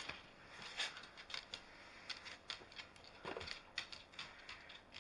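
Plastic magnetic building pieces clicking and clacking irregularly as they are handled and snapped together, with one fuller knock about three seconds in.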